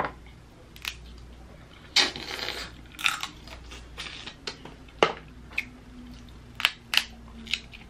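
Crab shells cracked and snapped apart by hand, with eating sounds: irregular sharp cracks, and a longer crunch about two seconds in.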